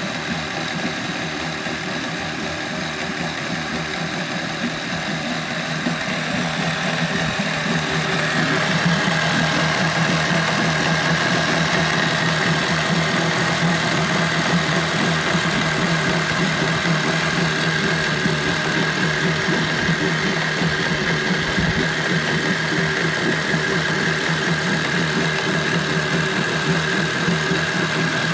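Mercury 25XD two-stroke outboard motor running in a test barrel of water, its throttle opened about seven seconds in so that it runs louder and holds a steady higher speed. It has the buzzy sound likened to a dirt bike's.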